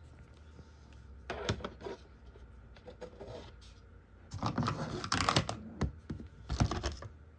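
Chicken eggs being handled and set down by hand: clusters of light clicks and rustles of shell, once about a second in and again for a couple of seconds starting about four and a half seconds in.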